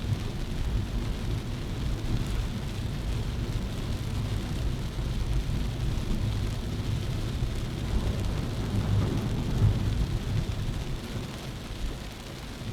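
Heavy rain falling on a moving Maruti Suzuki Baleno, over a steady low rumble of tyres and road that swells for a couple of seconds about three-quarters of the way in.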